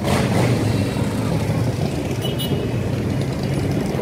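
A procession of motorcycles riding past, their engines a steady low rumble, with one bike passing louder just at the start.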